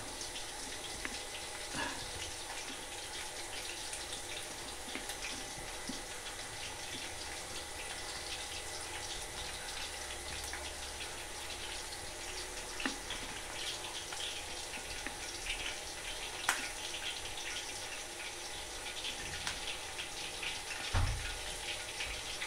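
Hot cooking oil sizzling in a frying pan with a steady hiss and fine crackling, with a few sharper clicks and a dull knock near the end.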